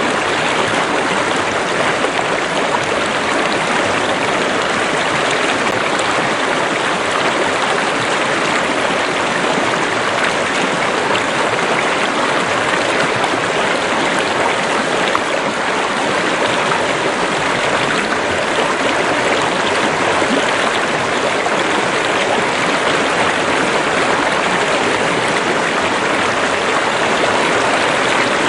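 Running water of a river or stream, a steady even rushing.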